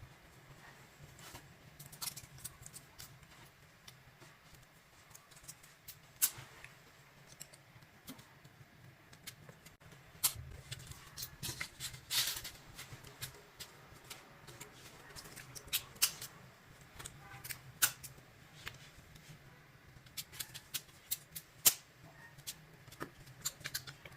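Irregular small clicks and taps from hands working craft materials, over a faint steady low hum.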